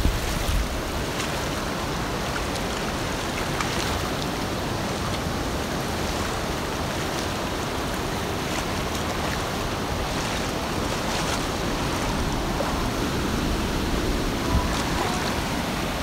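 The upper Kern River running high, a steady rush of whitewater pouring over rapids and cascades.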